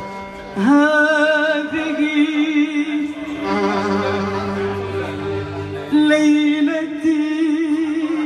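A woman singing ornamented, drawn-out phrases with wide vibrato into a microphone over sustained instrumental accompaniment. Her voice comes in about half a second in and again about six seconds in, with the accompaniment carrying on alone in between.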